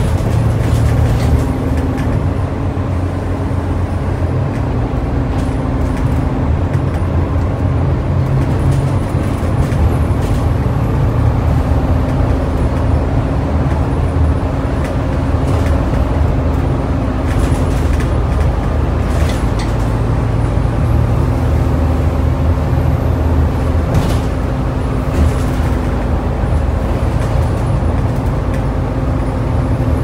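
Volvo B7TL double-decker bus running under way, heard from inside the upper deck: a steady low engine drone. A few brief knocks and rattles from the body come through at intervals.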